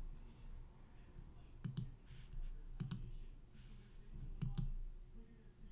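Computer mouse clicks: three quick double clicks of press and release, spaced a second or more apart.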